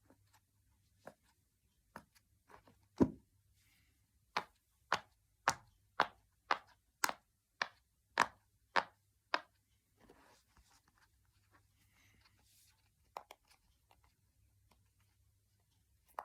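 Silicone Pop It fidget toy bubbles being pressed and popped, a run of about ten sharp pops at roughly two a second. Before the run comes a heavier thud about three seconds in, and after it a few scattered softer clicks.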